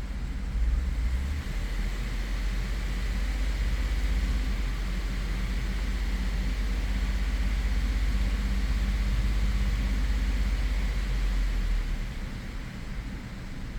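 Ford 3.5-litre EcoBoost twin-turbo V6 idling steadily during a scan-tool power balance test, which cuts cylinders to produce even, deliberate misfires. The running gets quieter about twelve seconds in.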